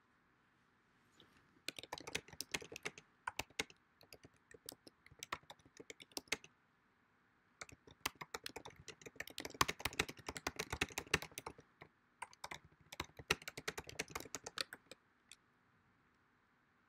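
Typing on a computer keyboard: quick runs of key clicks starting about two seconds in, with a brief pause midway, stopping shortly before the end.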